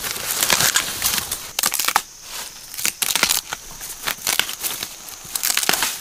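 Dry thorny bamboo-shoot sheaths and dead bamboo leaves crackling and tearing as a gloved hand breaks and handles the shoots. It comes as quick bursts of crisp crackles, thickest in the first two seconds and again near the end, with scattered crackles in between.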